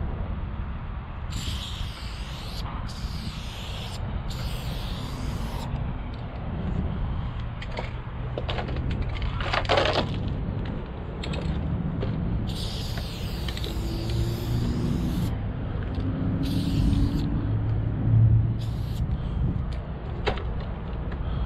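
Spray paint can hissing in short bursts of about a second each, three near the start and several more in the second half, over a steady low rumble.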